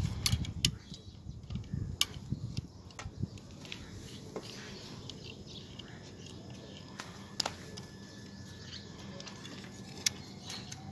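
Sharp, irregular clicks and taps of a small screwdriver on a diecast metal toy car as it is taken apart, about half a dozen over the stretch. There are low rubbing and handling sounds in the first few seconds.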